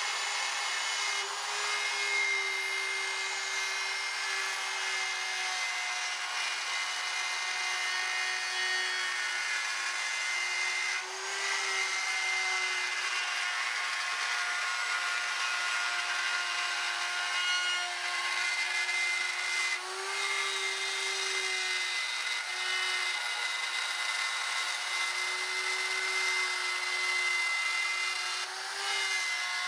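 Porter-Cable router running steadily with a template routing bit, cutting a recess into a plywood workbench top: a constant motor whine over the hiss of the cut, wavering slightly in pitch now and then.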